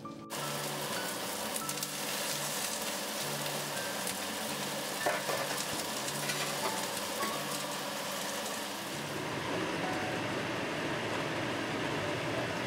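Chicken pieces coated in garlic and potato starch frying in a nonstick pan on a gas stove, sizzling steadily, with a light knock about five seconds in.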